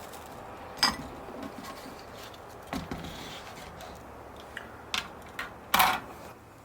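Several short, sharp knocks and clinks of hard objects being handled and set down, about five over the stretch, the loudest near the end, over a steady faint hiss.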